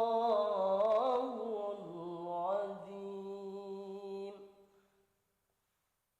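Male voice reciting the Quran in melodic tilawah style, drawing out long ornamented notes that waver and step down in pitch. The voice fades and stops about four seconds in.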